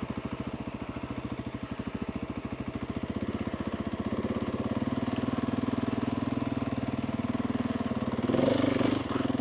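Single-cylinder engine of a 2021 Husqvarna 701 supermoto with a Wings exhaust, running at low revs while riding a dirt trail, its separate firing pulses clearly heard. The engine pulls a little harder and louder from about four seconds in, and there is a brief louder, rougher stretch near the end.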